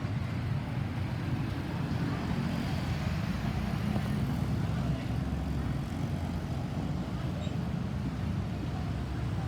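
Steady low rumble of road traffic, vehicle engines and tyres, with no siren sounding.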